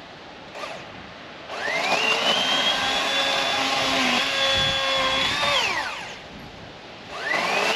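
Master Force 80-volt battery chainsaw's electric motor spinning up with a rising whine, running at full speed for about four seconds, then winding down. A second, shorter burst revs up and falls away near the end.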